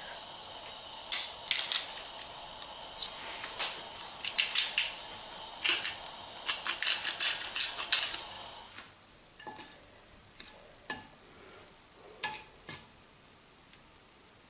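Grasshoppers sizzling in a little hot olive oil in a frying pan, with bursts of sharp grinding clicks from salt and pepper grinders being twisted over them. About nine seconds in the sizzle drops away, leaving a few scattered ticks.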